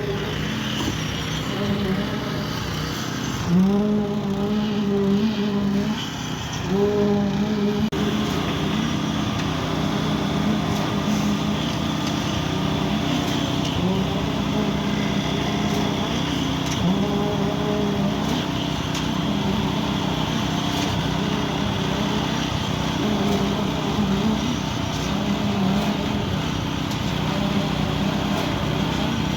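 Cifa truck-mounted concrete pump running under load while pumping concrete, its sound swelling in a repeating cycle about every three seconds as the pumping strokes alternate.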